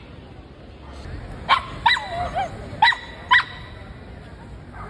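A small black-and-white terrier-type dog yapping shrilly: four short, high barks in two pairs, starting about a second and a half in.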